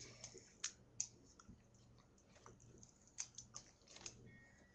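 Faint, irregular clicks and smacks from a dog's mouth as it noses and licks at a broken raw egg on a tiled floor.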